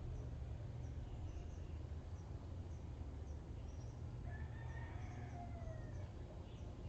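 Birds calling outdoors: small high chirps recur throughout, and about four seconds in a long pitched call, like a crow, drifts slightly down over a couple of seconds. A steady low hum runs underneath.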